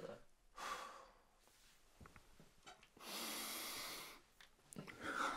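A person snorting a line of powder up the nose: a short sniff about half a second in, then one long, even sniff lasting about a second, and a breath near the end.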